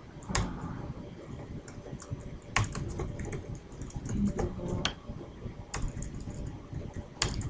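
Typing on a computer keyboard: slow, uneven keystrokes, with a few key strikes clearly louder than the rest.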